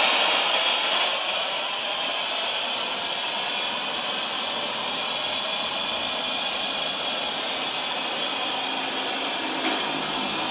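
Homemade fire-tube steam boiler's pop-off safety valve blowing off steam in a steady hiss, louder for about the first second and then settling. It is lifting because the boiler has reached its 75 psi setting.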